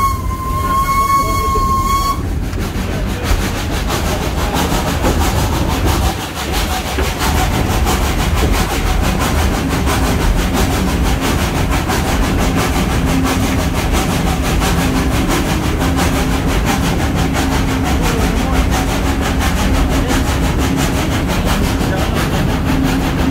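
Steam locomotive whistle, from the 1927 SACM 040 T tank engine, held on one steady note that cuts off about two seconds in, followed by the train's steady running rumble as it passes through a tunnel.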